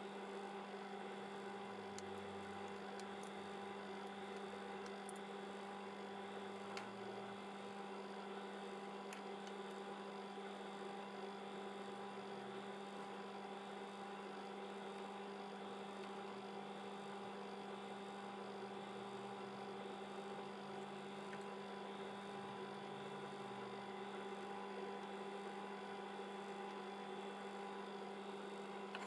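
A steady electric hum with a few faint ticks.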